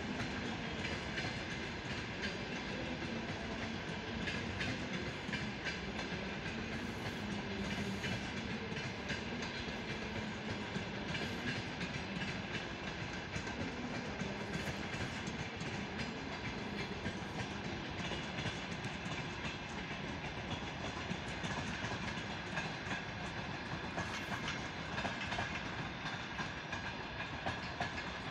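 Railway train running on the track: a steady rumble of wheels on rails with a clickety-clack of wheel clicks over rail joints.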